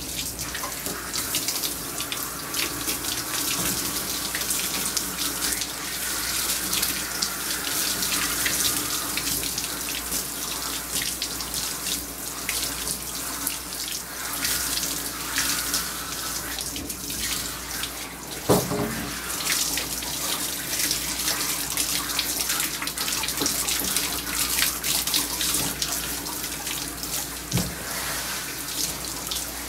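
Water streaming from a hand-held bath sprayer onto a wet German Shepherd's coat in a grooming tub, a steady hiss and splash with water running off into the tub. A brief sharp sound cuts through about two-thirds of the way in.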